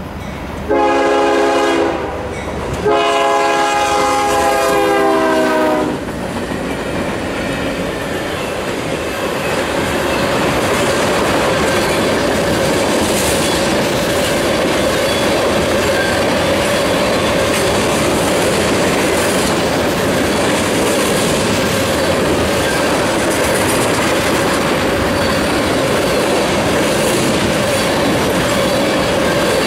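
Freight locomotive air horn sounding a short blast and then a long one, the pitch of the long blast dropping as the locomotives pass. Then loaded tank cars roll steadily past, with wheel-on-rail noise and a steady high tone over it.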